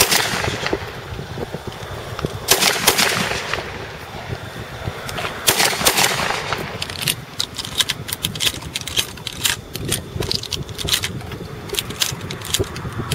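Shotgun blasts breaking thrown clay targets, a few shots in the first six seconds, each with a short echo. They are followed by a quick, uneven run of sharp metallic clicks and clacks as shells are loaded into the shotgun's magazine tube.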